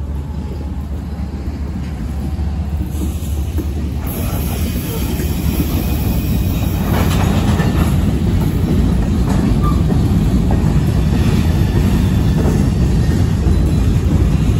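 Diesel freight locomotive passing with a steady low engine drone, then covered hopper cars rolling by, their steel wheels rumbling and clattering on the rails. The sound grows louder about four seconds in as the cars take over.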